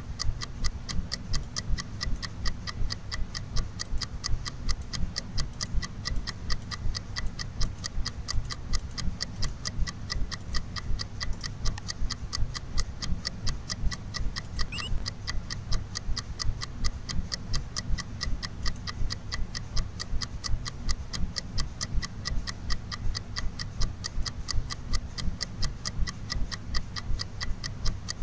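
Steady, evenly spaced ticking, a few ticks a second, over a low steady hum.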